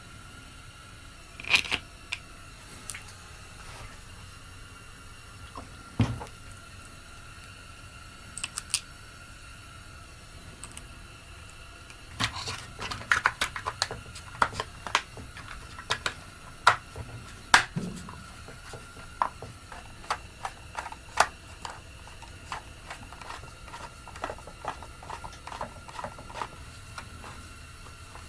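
Hand tools and chainsaw parts clicking and clattering on a workbench during reassembly of the saw: scattered sharp clicks, a dull thump about six seconds in, and a busier run of quick clicks in the middle.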